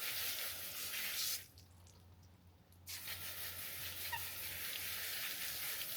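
Water running steadily, as from a hose or tap, with a break of just over a second before it starts again.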